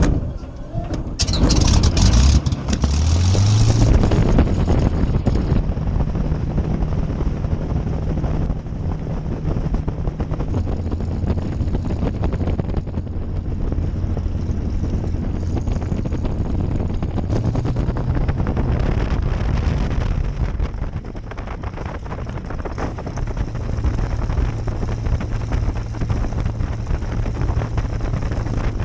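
The Rolls-Royce Merlin V12 engine of a 1940 Hawker Hurricane Mk I runs as the fighter taxis, heard from the open cockpit. The engine note rises about a second in, then runs steadily with small changes in throttle, over constant propeller-wash noise.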